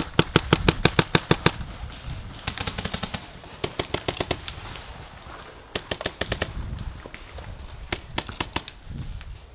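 Paintball marker firing in fast strings of shots, about eight a second: a long string at the start, then several shorter strings.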